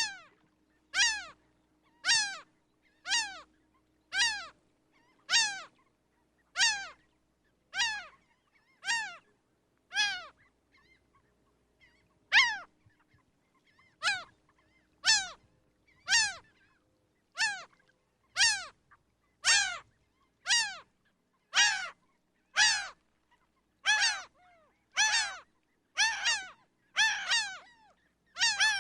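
Laughing gull calling: a long series of harsh laughing notes, each falling in pitch, about one a second. The series has a pause of about two seconds near the middle, and the notes come faster and closer together toward the end.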